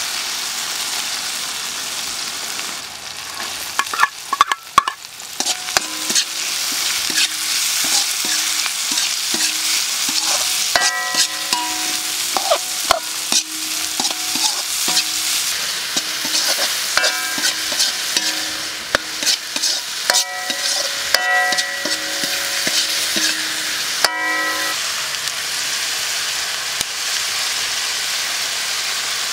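Chillies, tomatoes and onion sizzling in hot oil in a wok while a metal spatula stirs and scrapes them. The spatula clinks against the wok again and again, making the pan ring briefly, until about 24 s in; after that only a steady sizzle remains.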